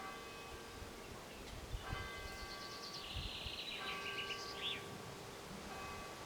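A bell tolling, struck about every two seconds, each stroke ringing on. A bird chirps briefly in the middle.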